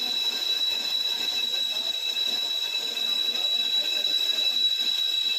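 Lathe turning a brake lining: a steady machining run with a constant high-pitched squeal from the cut.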